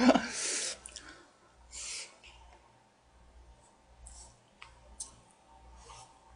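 Quiet eating sounds: short hissing breaths or mouth noises at the start and about two seconds in, then faint chewing and a few light clicks of wooden chopsticks against a plastic dish.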